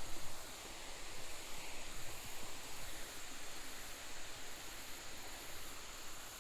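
Steady, faint rush of a small creek waterfall pouring into a pool.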